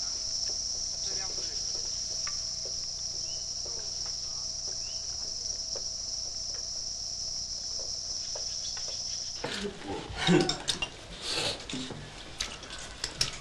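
A steady, high-pitched insect chorus. About nine seconds in, it gives way to the irregular clatter and sharp clicks of chopsticks against rice bowls.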